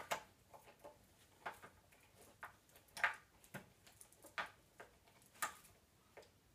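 AA batteries being fitted by hand into a Halloween animatronic prop's small plastic battery compartment: a string of irregular light clicks and knocks, the sharpest about three seconds in and again near the end.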